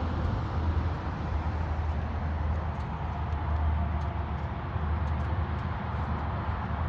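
Mazda 323F V6 engine idling steadily, a constant low hum heard through its stainless exhaust from just below the tailpipes.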